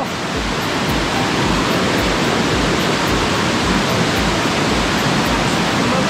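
Waterfall's rushing water: a steady, unbroken roar of falling water.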